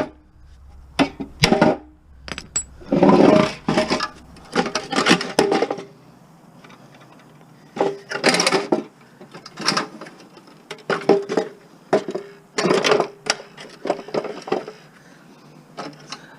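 Metal clanking and knocking as tools work at a stuck, pressed-in part of a gas lawn mower, in about five short clusters of clatter with quieter gaps between them.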